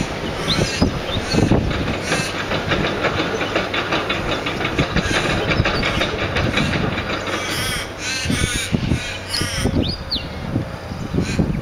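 Birds calling: a run of rapid repeated calls in the middle, a few drawn-out calls after it and some high whistled notes, over a low, uneven wind rumble on the microphone.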